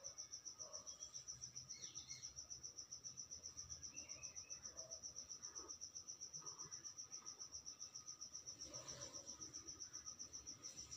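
Cricket chirping faintly in a steady high-pitched pulse, about seven or eight pulses a second.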